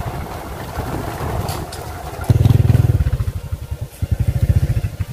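Small motorcycle engine running at low speed, its low, even pulses growing louder for about a second just after two seconds in, then easing back.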